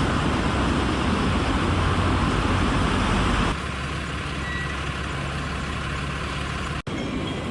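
City street traffic: a steady noise of motor vehicles. It breaks off abruptly about three and a half seconds in, and a quieter stretch of street noise follows.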